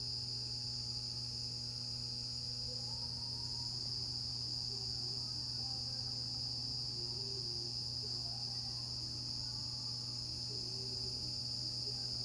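Insects, such as crickets, chirring in a steady unbroken evening chorus, high-pitched and constant, over a low steady hum.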